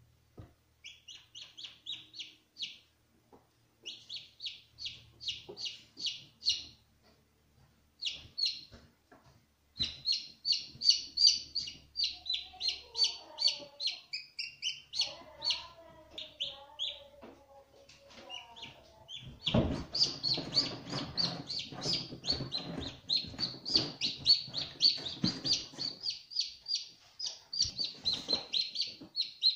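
Newly hatched Ayam Cemani chicks peeping in quick runs of short, high chirps, several a second. From about two-thirds of the way in, louder rustling and knocks of handling join the peeping.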